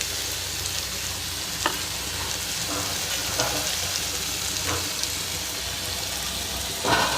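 Chicken curry sizzling steadily in a kadai, with a few faint knocks, likely a spoon against the pan, and a louder scrape near the end.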